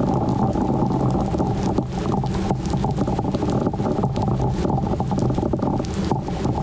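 Storm wind buffeting the microphone: a steady low rush, thick with crackles.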